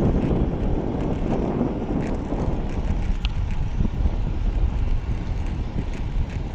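Wind buffeting an action-camera microphone: a steady low rumble, with a brief high chirp about three seconds in.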